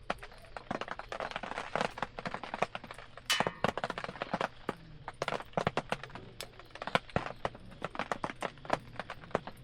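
Wood fire crackling, with irregular sharp snaps and pops several times a second.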